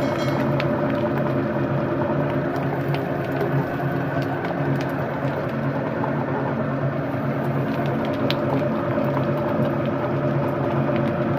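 Electric meat grinder running steadily with a motor hum, a few faint clicks over it.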